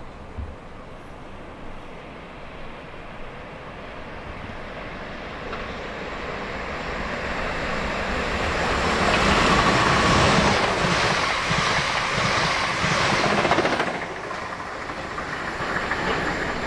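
South Western Railway passenger train approaching and running through the station at speed. It builds steadily to its loudest about ten seconds in, then drops off sharply at about fourteen seconds as the train passes.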